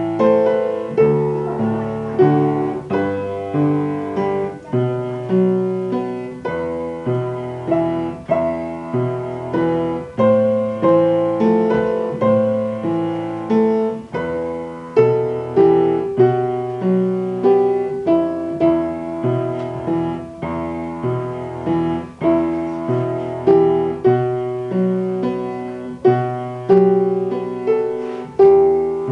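Upright piano played with both hands: a simple beginner's piece in a steady, even rhythm, a melody over a lower bass line.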